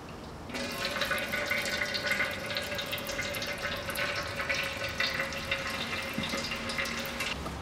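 Engine oil trickling from a Kia Rio's emptied oil-filter mount into a drain container: a steady thin pour with fine spattering. It starts about half a second in and eases off near the end.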